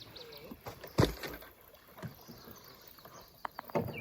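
Hollow knocks on a canoe hull, a loud one with a low boom about a second in and another near the end, as paddles or gear strike the boat.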